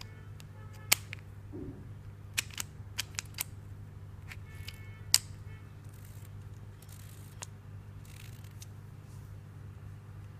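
Sharp small clicks from a roller burnishing tool being turned and handled: one about a second in, a quick run of five over the next couple of seconds, and another loud one near five seconds. A steady low hum sits underneath.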